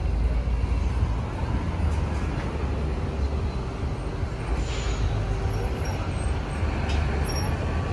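City street traffic: a steady rumble of passing cars and other motor vehicles.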